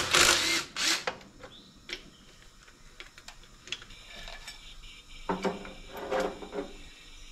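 Metal clinks, clicks and scrapes of hand tools and a wrench working the oil filter housing cap on the side of a small-cam Cummins diesel engine, with a cluster of sharper metallic clinks about two-thirds of the way through. A loud rush of noise fills the first second.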